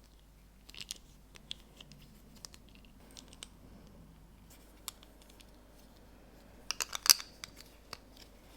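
Plastic LEGO bricks being handled and pressed together: scattered light clicks, with a quick run of louder clicks about seven seconds in.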